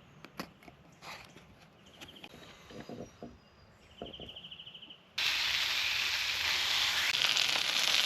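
Faint outdoor sounds with small clicks and short high trills, then about five seconds in a loud steady hiss starts suddenly and cuts off abruptly about three and a half seconds later.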